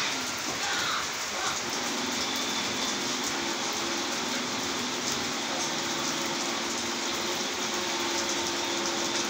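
Steady rain falling, an even hiss with a faint low hum underneath.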